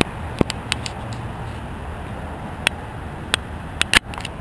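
Steady outdoor background rumble, like distant traffic, with a handful of sharp clicks and clacks scattered through it. The loudest are two close together near the end.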